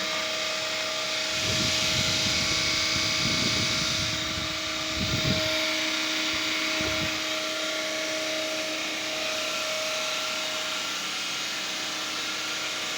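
Prime mover and large alternator of a generator rig running steadily, a constant whine with two steady tones over a hiss. Low rumbling bumps come and go during the first half.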